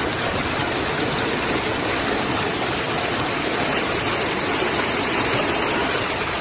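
Flash-flood water rushing and churning along a street: a steady, unbroken rushing noise.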